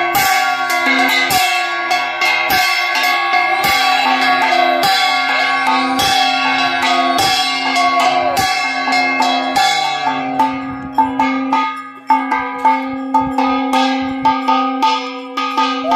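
Brass hand gong (ghanta) struck with a beater in a slow, even beat, about once a second, each stroke ringing with a slightly falling pitch. About three-quarters of the way through it switches to quicker, lighter strokes, several a second. A steady droning tone holds underneath.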